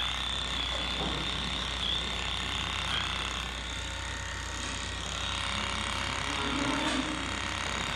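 Handheld electric clipper running, a steady high whine, used to clean a cow's matted, dung-caked tail switch, with a steady low machinery hum beneath.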